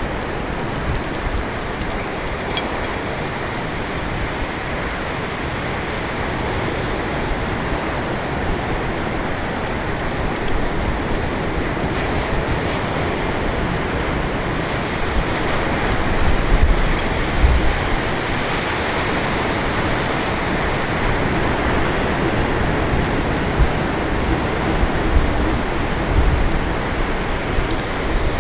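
Steady wash of surf breaking on an open ocean beach. In the second half, low gusts of wind buffet the microphone.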